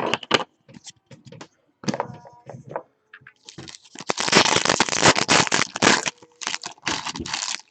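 Handling of trading cards and their packaging: a few scattered clicks, then from about three and a half seconds in, roughly four seconds of dense crackling and crinkling, as of a plastic or foil wrapper being worked.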